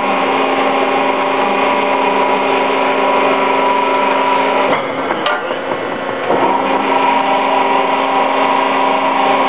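Powered plate-rolling machine running, its drive giving a steady hum with a whine over it as the rolls turn. About five seconds in the drive stops for about a second and a half, with a click, then starts again.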